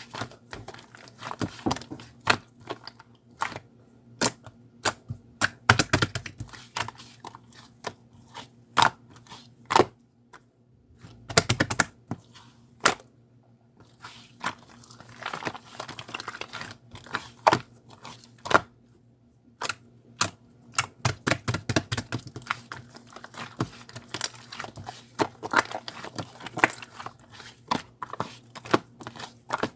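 Slime being squished and poked by hand, making a run of irregular sharp wet clicks and pops with a few short pauses.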